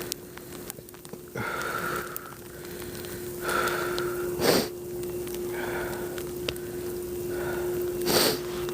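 A person breathing hard, winded from shoveling snow, with a sharp sniff about halfway through and another near the end, over a steady low hum.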